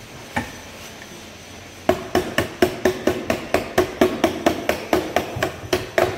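Hammer striking metal in a fast, even series of ringing blows, about four to five a second, starting about two seconds in after a single earlier knock.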